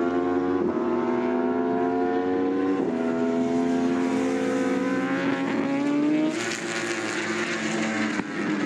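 Racing superbike engine at high revs, its pitch climbing as it accelerates, with two quick drops at upshifts, about half a second and about three seconds in. A little past six seconds it changes to a harsher, noisier engine sound.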